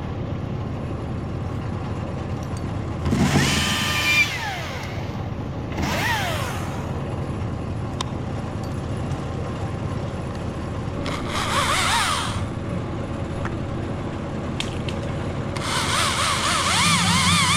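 Electric chainsaw revving in several short bursts while cutting fir limbs: each time its motor whine climbs, holds, then falls away, over a steady rushing background noise.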